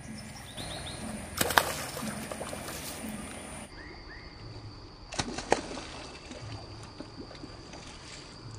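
A large snakehead fish, speared by a slingshot dart that has lodged on one side only, thrashing at the surface of a stream on the line: two loud splashes about a second and a half in and again about five seconds in, with smaller water sounds between.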